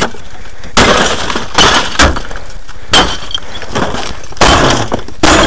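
An old television being smashed apart, with about six hard blows a second or so apart, each with glass breaking and debris clattering.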